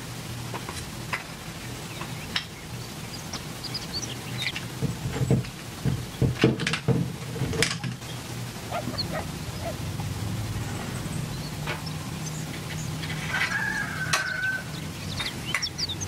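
Copper tubing coil and a chrome metal cup being handled together: knocks and metallic clicks as the coil is fitted around the cup, loudest about five to seven seconds in, over a low steady hum. A chicken clucks once near the end.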